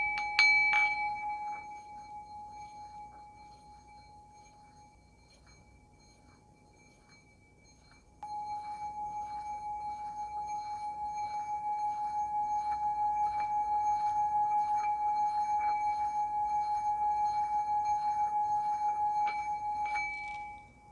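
Small brass singing bowl resting on a bare palm, without its mat. It is struck a few times at the start and its ring fades away; then about eight seconds in the wooden striker is rubbed around the rim and the bowl sings a steady, slightly wobbling tone that builds up slowly and stops shortly before the end.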